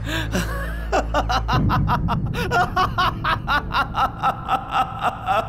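A man laughing hard: a short chuckle, then about a second in a long run of quick, even "ha" bursts, several a second, with his mouth thrown wide open.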